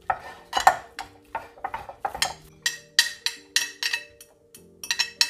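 A fork mashing white cheese with olive oil in a bowl, clicking and scraping against the bowl in quick, irregular strokes, about three a second.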